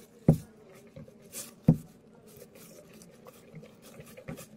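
Wooden craft stick stirring wet glue-and-borax slime in a plastic bowl: a run of small wet clicks, with two louder knocks against the bowl, one just after the start and one a little under two seconds in.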